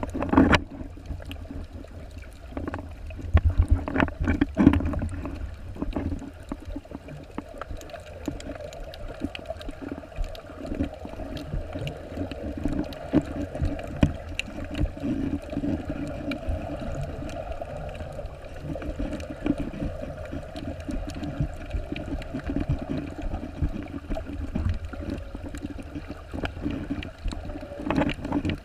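Muffled underwater sound of water moving around a submerged microphone while snorkeling, with a steady low rumble and drone. A few knocks stand out in the first five seconds and again near the end.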